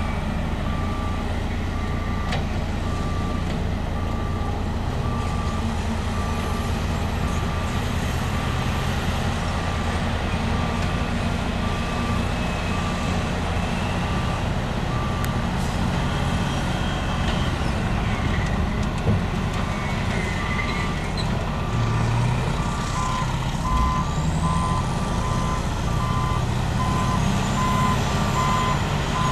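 Diesel engines of heavy earthmoving machines, a Caterpillar 631E wheel tractor scraper loading among them, running with a steady drone. A reversing alarm beeps steadily, pausing briefly midway, and a second, slightly lower-pitched backup alarm joins in near the end.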